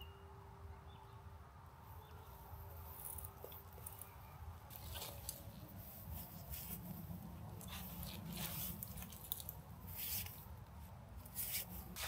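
Faint rustling and crackling in dry forest leaf litter, with scattered small clicks that start a few seconds in and grow more frequent toward the end, over a low rumble.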